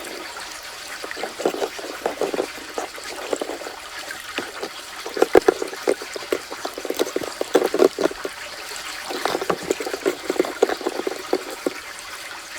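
Water trickling from a toy kitchen faucet while small plastic toy vegetables are rinsed, with irregular clusters of little clicks and splashes as they are handled.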